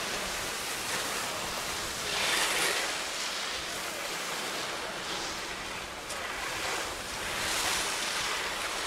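Slalom skis scraping and carving over hard-packed snow as the skier turns through the gates: a steady hiss that swells twice.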